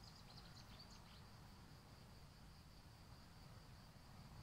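Faint steady chirring of crickets, with a few short high chirps in the first second.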